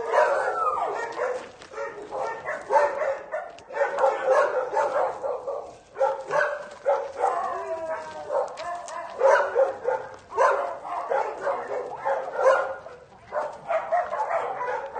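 A puppy yipping and whining over and over, in bursts a second or two long with short breaks between.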